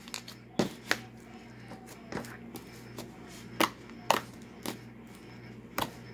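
Thick, slightly over-activated blue slime being kneaded and poked by hand, giving about seven sharp sticky clicks and pops at irregular intervals, over a steady low hum.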